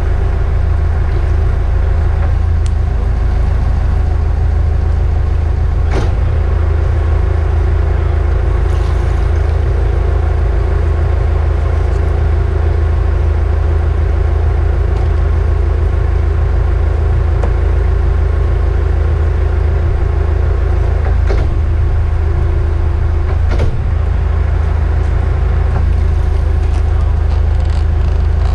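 Leopard 45 catamaran's diesel engines running steadily in forward gear, a constant low drone, with a few sharp clicks.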